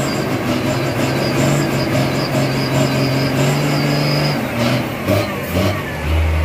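Hino 500 dump truck's diesel engine running hard under load, its note holding and creeping slightly upward, then easing off a little after four seconds, with a couple of knocks. Near the end it settles to a lower, steady note.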